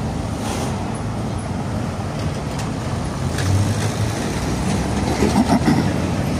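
Street traffic: cars driving slowly past on a cobblestone street, with a steady engine hum.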